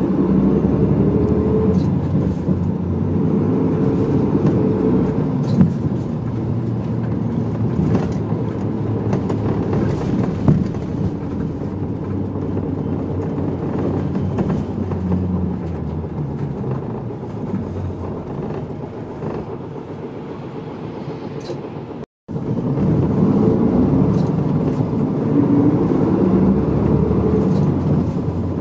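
Medium-size diesel route bus running, heard from inside the cabin: engine note and road noise that shift in pitch as the bus drives. It grows quieter for a few seconds, cuts out for an instant about three-quarters of the way in, then returns louder.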